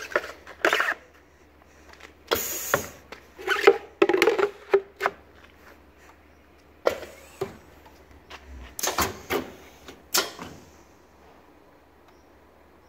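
Knocks and clatter of hollow PVC window-profile pieces being handled and set down on the steel table of a PVC window welding machine, with a short hiss about two and a half seconds in. The sounds come as separate irregular knocks, with a denser run of clatter around four to five seconds in.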